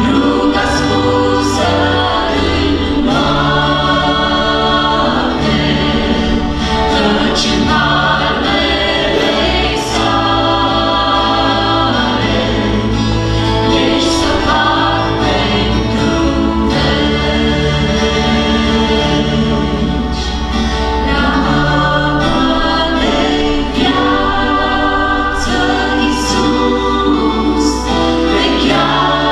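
Mixed vocal group of men and women singing a gospel hymn in harmony, accompanied by electric bass guitar and acoustic guitar, with a steady bass line underneath.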